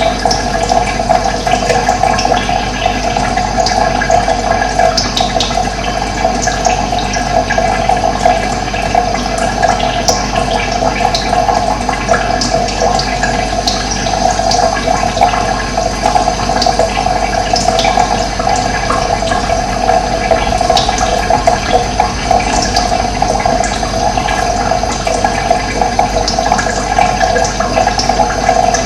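Steady flowing water, an even unbroken noise, with brief high bird chirps scattered through it.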